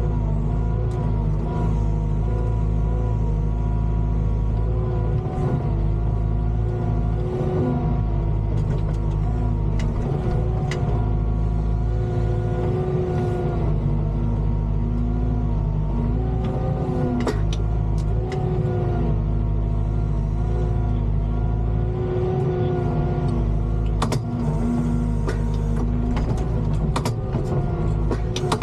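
Volvo EWR150E wheeled excavator working: its diesel engine runs steadily under a hydraulic whine that rises and falls as the arm moves. A few sharp knocks or clicks come through now and then, most of them in the second half.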